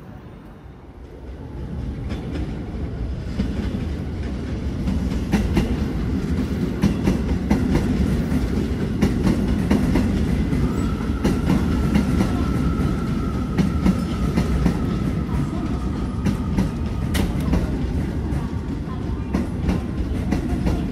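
Keio Line electric train running on the rails, a steady rumble with a fast clatter of wheel clicks that grows louder over the first couple of seconds. A thin high whine holds for several seconds in the middle.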